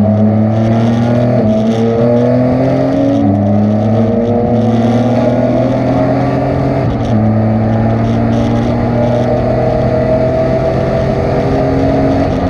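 Race car engine pulling hard under acceleration. Its pitch climbs steadily and drops sharply at upshifts about a second and a half, about three seconds and about seven seconds in.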